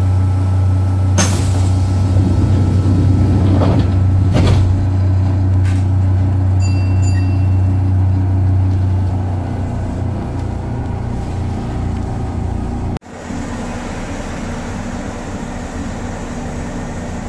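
Steady low hum of a commuter train car's onboard equipment while the train stands in a station, with a few knocks and a short high beep. About two-thirds of the way through it drops out abruptly to a quieter steady hum.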